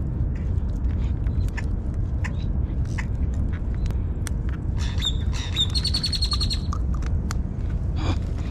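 Wind rumbling on the microphone, with small clicks from handling a fishing rig and crab bait. About five seconds in, a bird gives a rapid chattering call that lasts over a second.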